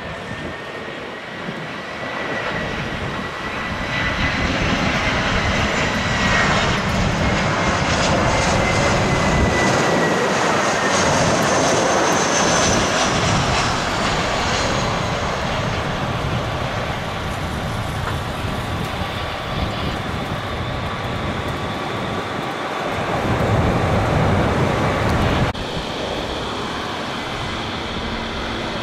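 Airbus A320-200 jet airliner's engines on landing approach, with a high whine that drifts slowly in pitch. The noise swells as the plane comes close, stays loud for a while, then eases off. Near the end the sound changes abruptly to a second A320 on approach.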